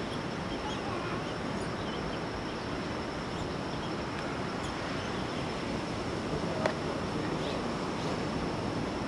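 Ocean surf making a steady wash, with scattered short bird chirps over it and a thin steady high tone. One sharp click comes about two-thirds of the way through.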